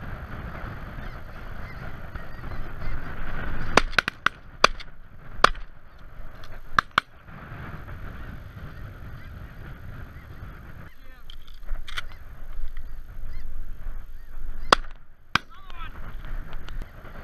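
A flock of snow geese calling steadily overhead. A rapid volley of shotgun shots cuts through about four seconds in, roughly nine sharp reports in three seconds, followed by three more single shots later on.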